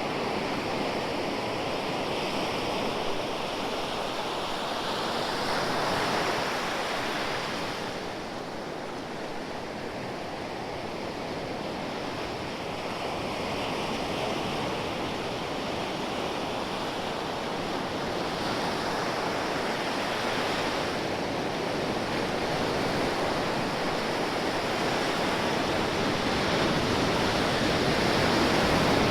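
Ocean surf: waves breaking and washing in as a continuous rushing, slowly swelling and easing with each wave, with a lull about a third of the way in and the loudest surge near the end.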